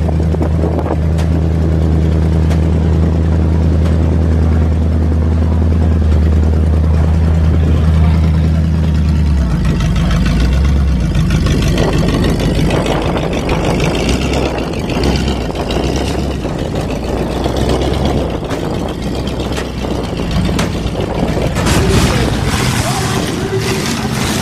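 Demolition derby car's engine idling with a steady low hum. About ten seconds in it gives way to a rougher, noisier engine sound with revving as the car is driven.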